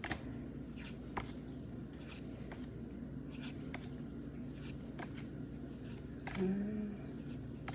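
Pokémon trading cards being flipped through and slid against each other by hand: a run of light, irregular clicks and rustles.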